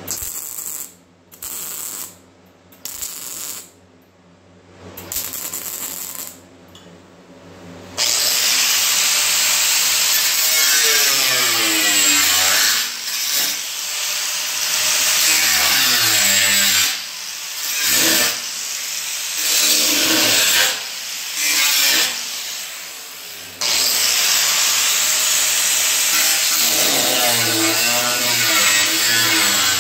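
A cutoff tool cuts through sheet steel on a car fender, slicing through the overlapped patch and fender so the two edges will butt together. It starts with a few short bursts, then runs almost continuously from about eight seconds in. Its pitch sags and recovers as it loads up in the cut, with several brief stops.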